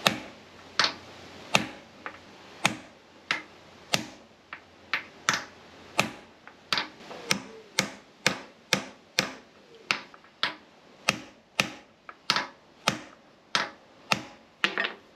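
Repeated hammer blows on a block against a rusted-in pinion in a Victorian radial drill's cast-iron head, about two sharp knocks a second, quickening slightly after the first few seconds. The pinion is rusted in and does not come free.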